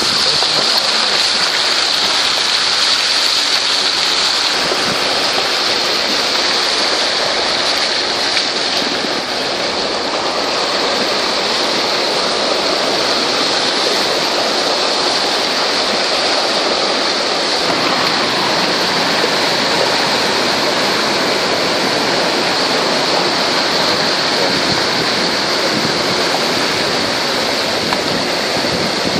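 Muddy floodwater from a torrential downpour rushing down a village street, a steady, unbroken flow of water.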